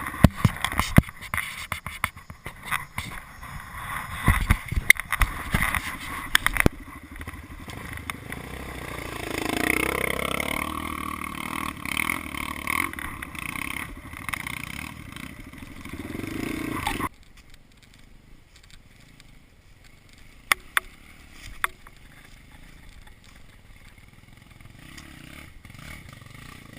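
Yamaha Lander 250's single-cylinder engine running while riding a rough off-road trail, with many sharp knocks, clatter and scraping from the bike on the terrain. About seventeen seconds in the sound drops suddenly to a much quieter background with a few sharp clicks.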